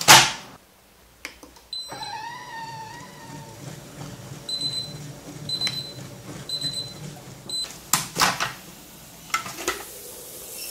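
Moulinex Cuisine Companion food processor: a click as the lid locks shut, a short beep, and a whirring tone that sinks and fades as the mixing program is stopped. Then four short high beeps about a second apart over a low hum, and near the end the clicks and knocks of the lid being unlocked and opened.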